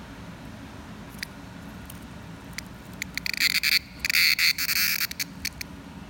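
A hand-held cicada buzzing from its tymbals: a few scattered clicks, then two loud harsh buzzes about three and four seconds in, the second about a second long, breaking off into a few more clicks.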